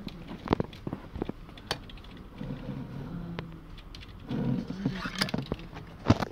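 Scattered clicks and knocks from a vintage Yashica Mat-124 G twin-lens reflex camera being handled and turned over on a counter, with one sharp knock near the end. Faint voices murmur now and then.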